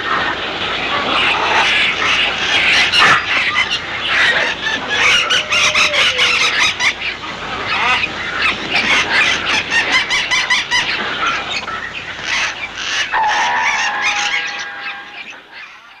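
Sound-effects recording of a flock of birds attacking: a loud, dense clamour of many overlapping bird calls, fading out over the last couple of seconds.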